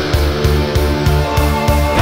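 Heavy rock TV theme music, electric guitar over a driving beat.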